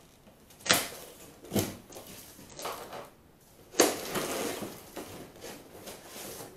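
Thick paper wrapping slit with a knife and ripped off a long cardboard box. There are several short sharp rips about a second apart, then a longer tearing and crumpling rustle starting about four seconds in.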